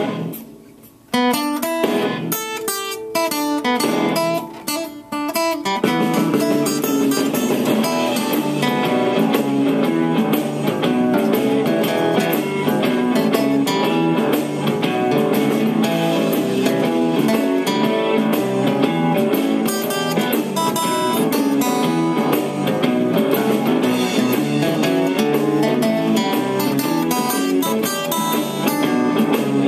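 Steel-string acoustic guitar played by hand in a blues style. The sound dies away briefly at the start, then comes back with a few separate picked notes and chords, and about six seconds in it settles into steady rhythmic strumming of a blues chord progression.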